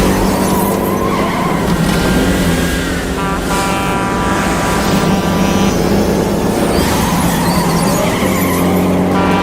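Chase-scene vehicle sound: a semi truck's engine and tires running hard, with skidding tire noise and engine pitch rising and falling.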